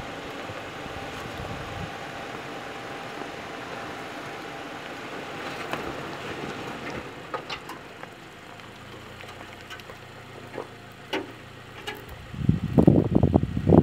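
Subaru Crosstrek crawling slowly over rough dirt: a low, steady vehicle sound with scattered sharp clicks from the second half on, like stones crunching under the tyres. Near the end, loud irregular gusts of wind buffet the microphone.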